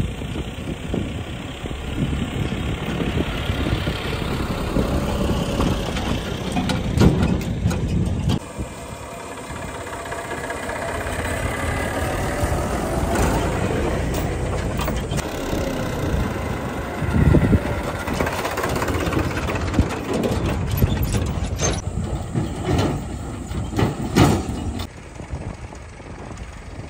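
Diesel farm tractors running and driving on a dirt track with their steel trolleys, the engines going steadily and scattered knocks and clanks from the trolleys. The sound changes abruptly about 8 seconds in and again near the end.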